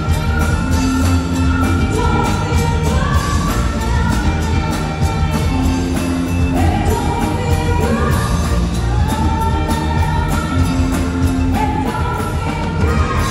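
Live band playing a song through the stage PA: sung vocals over electric bass and keyboard, with a steady beat.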